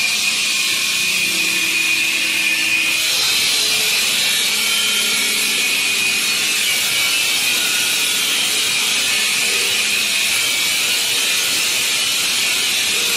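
A bridge saw's diamond blade cuts granite under a water spray. It makes a steady, loud high-pitched whine over a hiss.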